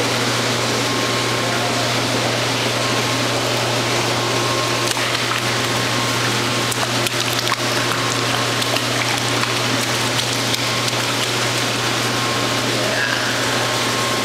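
Toddler splashing, his hands slapping the pool water, with the splashes clustered in the middle of the stretch. Under it runs a steady low hum and hiss.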